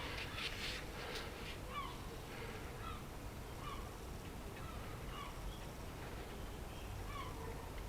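Short bird chirps repeating every second or so over a low steady background, with a few sharp clicks in the first second.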